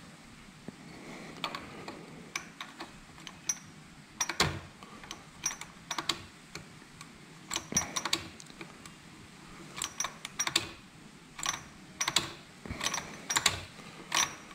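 Irregular sharp metallic clicks and clacks from a Suzuki RGV250's kickstart mechanism as the kickstart lever, fitted loosely on the bare shaft, is swung by hand and sprung back. The return spring is working as it should.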